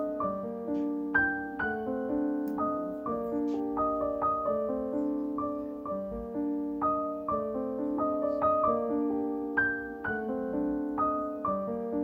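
Background piano music: a gentle melody of single notes struck at an even pace, each ringing on as the next begins.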